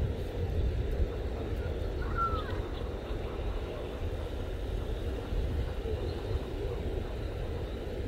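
Steady low outdoor rumble, with a brief faint falling squeak about two seconds in.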